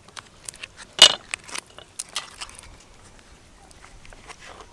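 Light clicks, taps and crinkles of hand food preparation: a knife and a paper seasoning packet handled on a wooden chopping board, then a stainless steel bowl, with one sharp knock about a second in.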